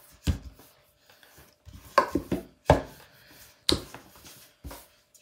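Rolling pin rolling out wrap dough on a table: soft rubbing and rolling with about six sharp knocks as the pin is set down and pressed against the tabletop.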